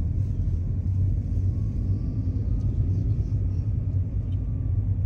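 Steady low rumble of a car's road and engine noise, heard inside the moving car.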